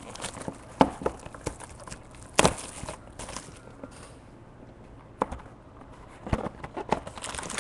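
Hands handling and opening a cardboard trading-card box: a scattered series of short taps and knocks against the table, the loudest about two and a half seconds in, with faint rustling between them.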